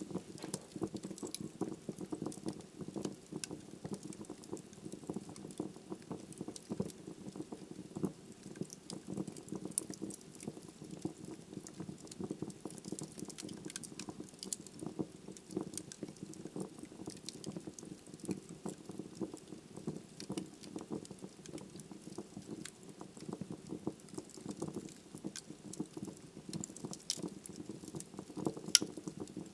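Wood fire burning in a fireplace: a steady low rush of flame with frequent small crackles and pops from the burning logs, and a few louder pops near the end.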